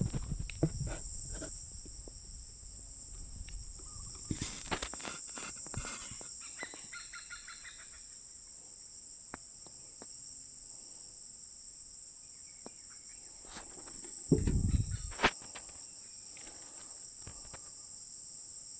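Steady high-pitched insect chorus of crickets or cicadas, with scattered knocks and clicks. The loudest is a low thump with a few sharp knocks about 14 seconds in.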